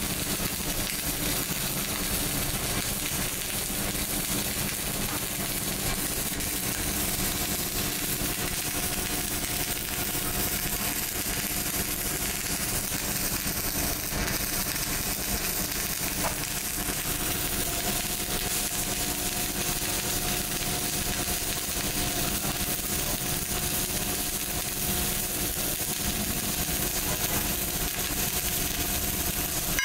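Electric welding arc crackling and hissing steadily without a break, over a steady machine hum.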